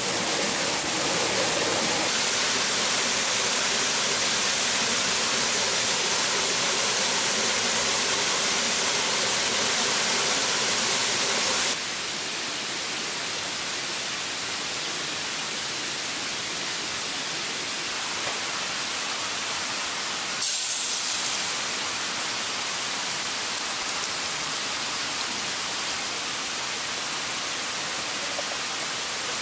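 Steady rushing hiss of falling water, which drops a little in level about twelve seconds in and briefly rises near the twenty-second mark.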